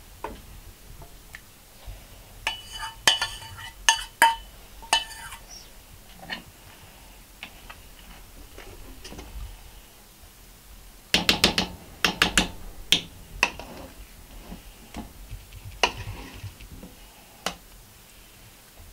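Metal spoon knocking and scraping against a stainless steel saucepan while mashed potato is scooped out. There are ringing clinks about three to five seconds in and a quick run of knocks around two-thirds of the way through.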